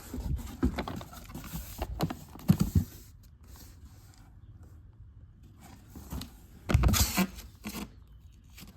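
Handling noise from firework cake boxes being moved: irregular knocks, scrapes and rustling. A louder cluster of knocks comes about seven seconds in.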